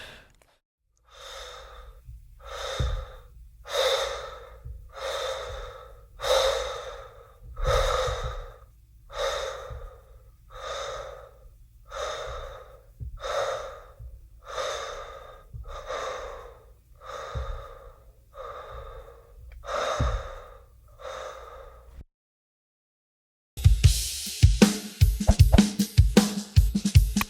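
Heavy, laboured breathing of someone recovering after hard exertion, with rapid, even in-and-out breaths about one a second that ease off a little toward the end. After a short silence, music with a drum kit starts near the end.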